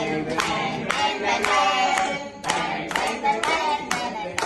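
A group clapping in time, about two claps a second, along with voices singing.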